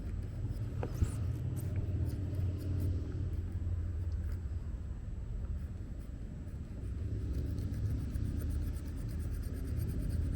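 A Lishi two-in-one pick working inside a Ford car door lock, giving faint metallic clicks and a run of fine rapid ticking near the end, over a steady low rumble.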